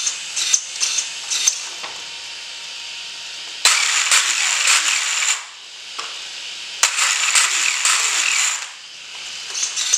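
A brushless HPI Savage Flux RC truck's motor and drivetrain spinning up twice under throttle, each run lasting about two seconds, after a few light clicks. The truck is answering its radio through the newly connected UHF link.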